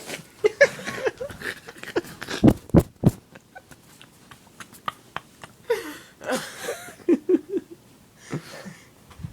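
Short breathy, wheezy vocal sounds, like stifled giggling, with a few sharp thumps or knocks about two and a half to three seconds in.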